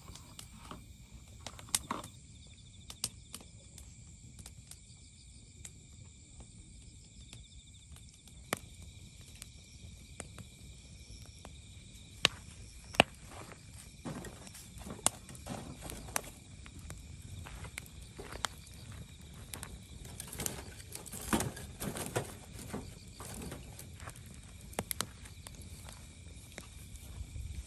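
Insects trilling steadily in the background, with scattered sharp clicks and knocks. From about halfway the clicks thicken into the crackling and popping of a wood fire in a steel fire pit, loudest around three-quarters of the way through.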